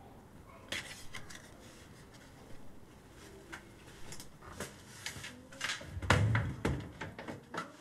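Door being shut, with a latch click about a second in, scattered small knocks and clicks of handling, and a heavier thump about six seconds in.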